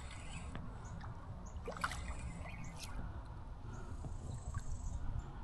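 Faint water splashing from a hooked small largemouth bass being reeled in toward a canoe, over a low steady rumble, with a few soft ticks.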